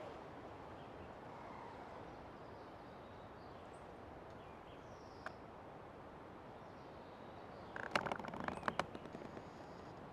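Faint steady forest ambience with a few faint bird chirps, then about eight seconds in a short run of rapid creaking clicks from an old tree's wood.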